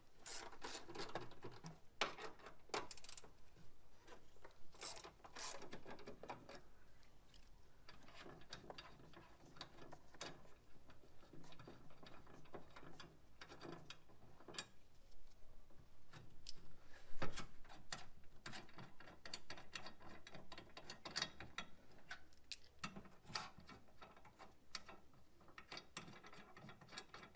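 Hand socket ratchet clicking in short runs as bolts are worked loose, between clanks of tools and metal parts. A single sharp clank about two-thirds of the way through is the loudest sound.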